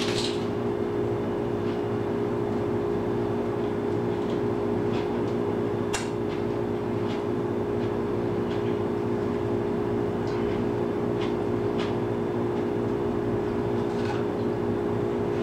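A steady machine hum, with a few faint clicks and crunches of someone chewing a bite of a toasted BLT sandwich.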